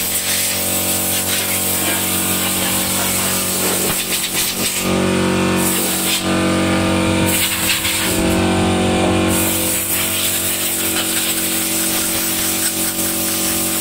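Steady machine hum over hiss, swelling in three stretches of about a second each in the middle.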